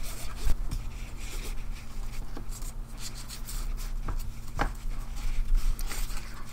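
Nylon paracord rubbing and rustling as fingers loop a strand and pull it through a tight cobra-stitch weave, with a few soft clicks scattered through.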